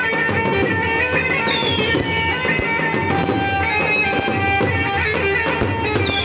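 Loud Iraqi choubi dance music played over a loudspeaker: a sustained, held-note melody over a drum beat.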